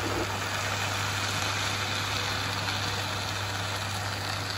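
Hot, freshly baked baklava sizzling steadily as syrup is poured over it from a Thermomix bowl, over a steady low hum.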